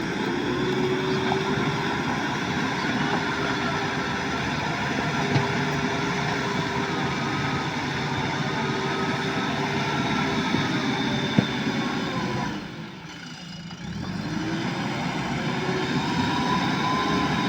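JCB backhoe loader's diesel engine running at high revs. About twelve and a half seconds in the revs drop away, then pick up again a second or so later. Two brief sharp knocks along the way.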